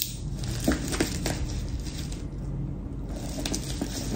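Bubble-wrap plastic packaging being handled and cut open with a box cutter, crinkling, with a few sharp clicks about a second in and again near the end.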